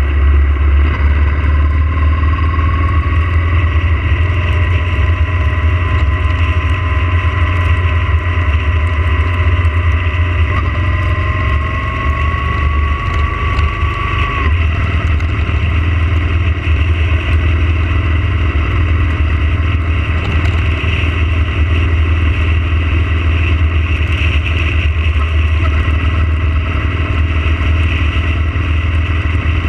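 Yamaha motorcycle running at road speed: a steady deep engine drone mixed with wind noise. A faint whine rises slowly twice in the first half and breaks off about halfway through.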